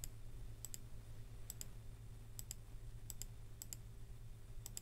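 Computer mouse button clicking about seven times, each click a quick double tick of press and release, over a steady low electrical hum.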